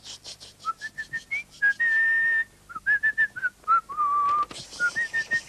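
A man whistling a tune by mouth: a run of short notes with a longer held high note and a lower held note. Rapid airy hissing strokes come at the start and again past the middle.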